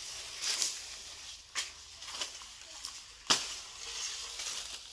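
Rustling and crackling of grass and dry stalks being handled or stepped on, in a few short bursts, with one sharper crackle a little past three seconds in.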